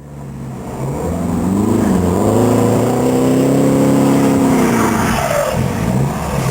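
Suzuki Samurai's engine revving: the pitch climbs about two seconds in, holds high, then drops back near the end.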